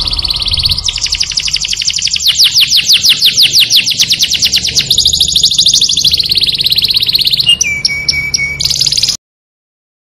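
Canary singing a long run of fast trills, one rolled phrase after another, ending in a few low, flat notes before cutting off suddenly about nine seconds in.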